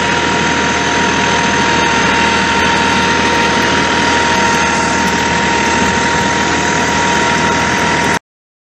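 Massey Ferguson 1433 compact tractor's diesel engine running steadily under load while climbing through brush, heard from the driver's seat, with a steady whine over it. It cuts off suddenly near the end.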